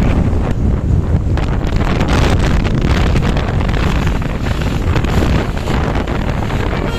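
Wind buffeting the microphone over a steady low road and engine rumble from moving traffic, with no horn sounding.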